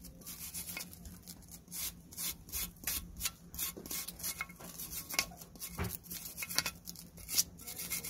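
Hand wire brush scrubbing rust off the steel pad-clip seats of a front brake caliper bracket, in quick, irregular scratchy strokes.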